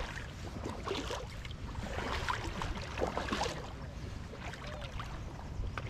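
Outdoor ambience without speech: a steady low rumble, like wind on the microphone, with scattered faint short taps and clicks.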